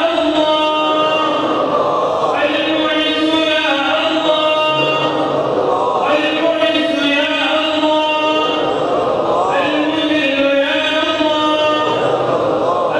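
A man's voice chanting an Islamic supplication (dua) in long, drawn-out melodic phrases, four of them, each lasting three to four seconds.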